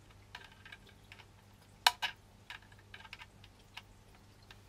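Small plastic clicks and taps of an audio cable plug being worked against the socket of a live microphone kit's box, with one sharp click about two seconds in. The plug is not going in.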